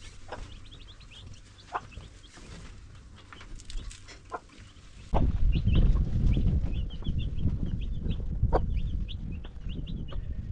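Chickens clucking, with many quick high chirps. About five seconds in, a loud low rumble starts suddenly and continues under the calls.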